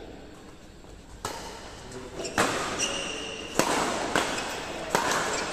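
Badminton rackets striking a shuttlecock in a fast rally: about six sharp smacks, under a second apart, starting a little over a second in and echoing in a large hall. A short high squeak comes about midway.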